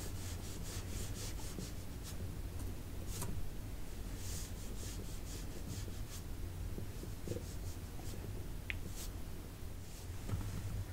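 Makeup brush bristles brushed and rubbed close against the microphone in soft, scattered strokes, over a steady low hum.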